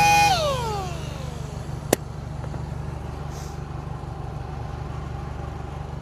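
A power sander's high whine cuts out just after the start and falls in pitch as the pad spins down over about a second and a half. A single sharp click comes near two seconds in, over a steady low hum.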